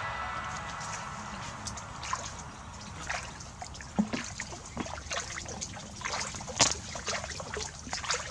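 Bare feet wading through shallow ditch water, with irregular splashing steps about one or two a second.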